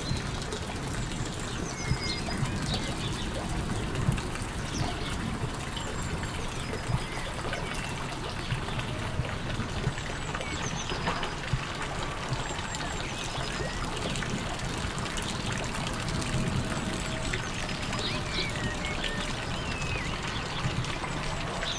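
Steady rushing outdoor noise, with birds chirping in short calls here and there.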